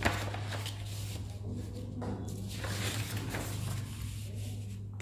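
Soft, irregular rustling and handling of paper, with a few brief scuffs, over a steady low electrical hum.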